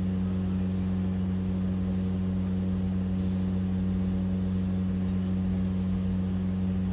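Steady machine hum: one low tone with several higher overtones, holding level and unchanging.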